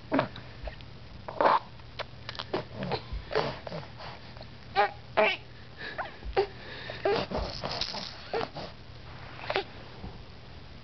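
A baby's short breathy grunts and little vocal sounds, about a dozen scattered through, made close up while she mouths a plush rattle toy.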